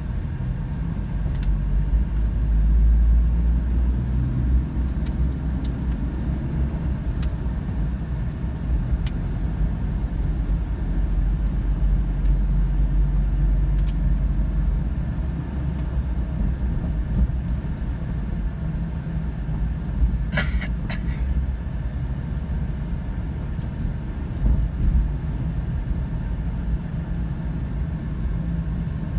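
Steady low rumble of a car's engine and tyres heard from inside the cabin while driving. About two-thirds of the way through there are two brief, sharper sounds close together.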